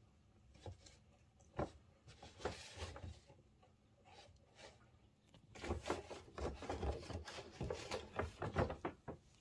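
Brown paper bag rustling and crinkling as a Siamese cat pokes its head and paws into it. The rustles come in irregular scrapes, sparse at first and busiest in the last few seconds.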